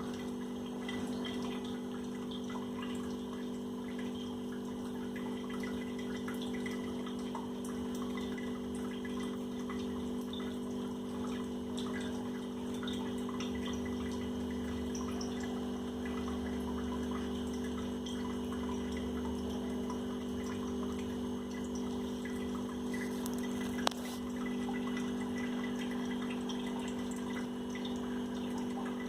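Kitten lapping milk and chewing soaked roti, small wet clicks, over a steady low mechanical hum, with one sharp click near the end.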